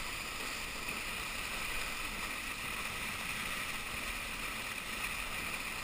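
Steady rushing hiss of water spray under water skis towed across a boat's wake, with wind noise on the microphone.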